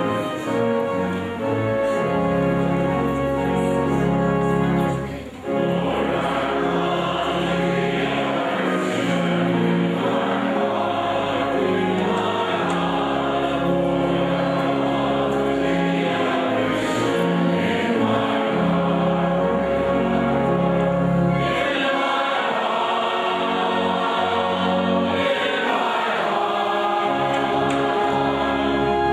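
Congregation and choir singing a hymn verse together, accompanied by organ with long-held deep bass notes.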